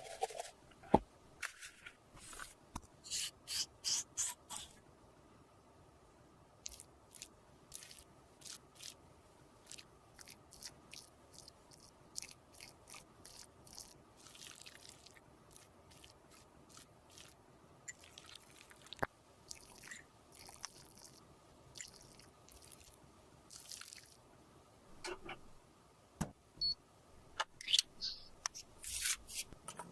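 Close-miked handling of cosmetics: irregular short scrapes, taps and small squishy sounds of makeup paste and small tools or containers, with one sharp click about halfway through.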